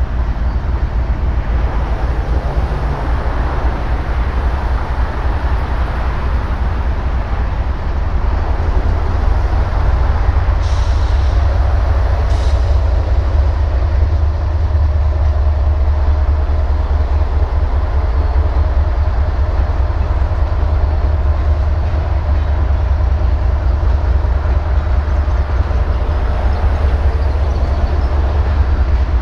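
Diesel-electric freight locomotives running in a rail yard: a steady low engine rumble, with two short hisses about a third of the way in.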